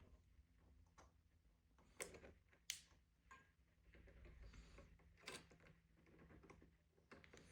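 Faint clicks and light taps from small cassette-deck parts being handled, a few seconds apart, the sharpest about two and a half seconds in, with a soft rubbing sound near the middle.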